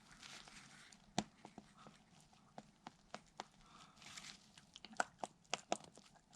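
Small steel parts of a 5.3 LS hydraulic lifter clicking and tapping as they are handled during reassembly. The clicks are faint and scattered, with one louder click about a second in and a quick run of clicks near the end.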